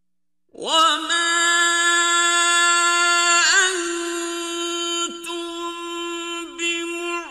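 A man chanting Qur'an recitation, starting about half a second in with one long held note, ornamented with a quavering turn midway and a couple of short breaks near the end.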